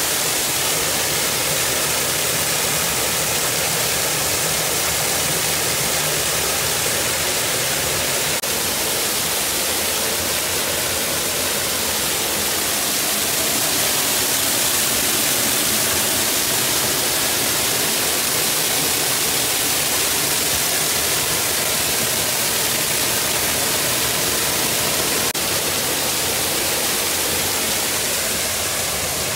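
Artificial garden waterfall heard close up: water falling and splashing onto rocks and into a pond in a steady hiss that eases slightly near the end.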